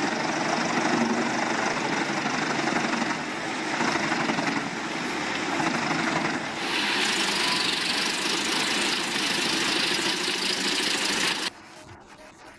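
Wood chipper running as whole unsplit logs are fed in: a steady machine drone that turns into a harsher, hissing grind about two-thirds of the way through, then drops away sharply near the end.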